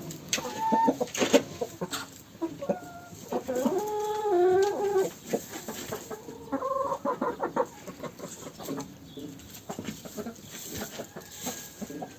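Domestic hens clucking and calling, with several short calls and one longer, wavering drawn-out call about four seconds in.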